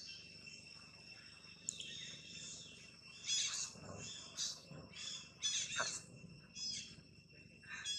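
Birds chirping, a run of short high calls starting about two seconds in, over a steady high insect drone.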